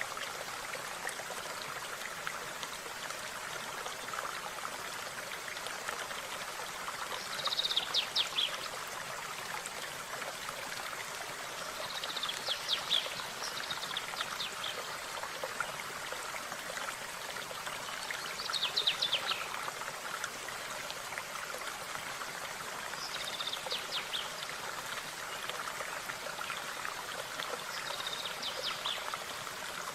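Stream of running water flowing steadily, with a songbird calling five times in short, rapid high-pitched trills.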